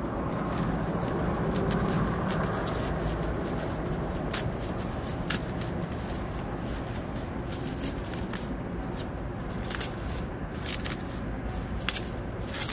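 Packaging being handled and unwrapped by hand: scraping and crinkling with many small clicks and ticks, over a steady low background rumble.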